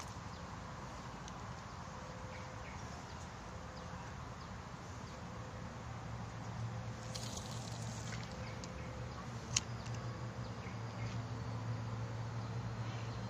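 Quiet outdoor background at a pond: a steady low hum that slowly grows a little louder, with one sharp click about two-thirds of the way through.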